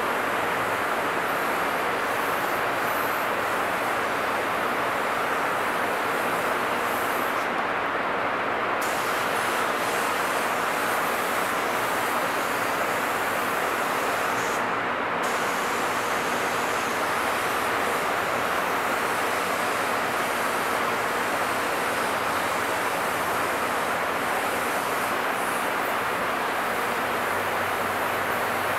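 Compressed-air paint spray gun hissing steadily as it sprays. The sharpest part of the hiss drops away briefly twice, about eight and fifteen seconds in.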